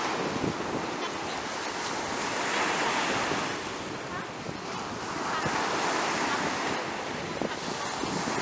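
Small ocean waves breaking and washing up a sandy beach, the surf swelling louder twice, with wind buffeting the microphone.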